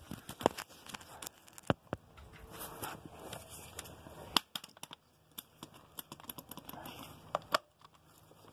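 Tools being handled by hand: a scattering of sharp clicks and knocks with rustling between them, as the torque wrench and socket are worked off the lug nut and the next impact wrench is picked up. No impact wrench is running.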